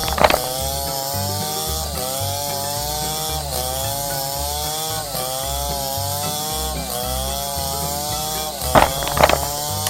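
A small motor-driven tool whining steadily with a hiss over it, its pitch dipping briefly about every one and a half seconds, with a sharp rising whine near the start and again near the end.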